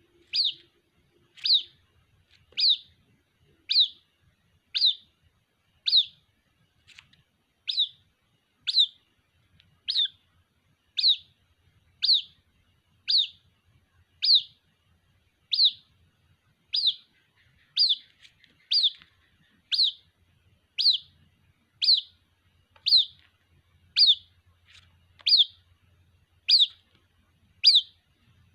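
White-breasted waterhen chick calling for its parent: a short, high peep falling in pitch, repeated evenly about once a second.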